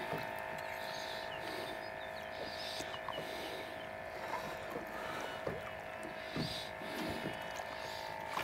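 A steady electric hum of several tones from a small motor on the fishing boat, with scattered faint splashes and knocks as a channel catfish is brought to the landing net.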